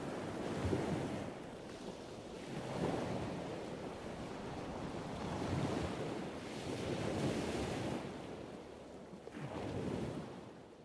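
Ocean waves washing in, the surf noise swelling and falling back every two to three seconds, fading out near the end.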